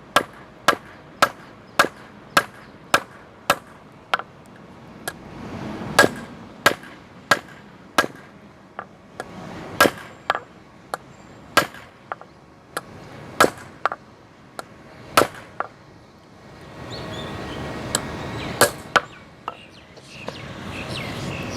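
Hand hammer striking hot mild-steel rebar on an anvil, forging the knife's tip into a preform. The blows come at about two a second with a few short pauses, each a sharp clang with a brief metallic ring. A steady rushing noise swells up in the last few seconds.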